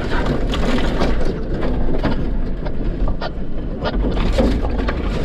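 Jeep driving slowly over a rough dirt trail: a steady low rumble of engine and tyres, with frequent clicks, knocks and rattles as it crawls over rocks and bumps through tight brush.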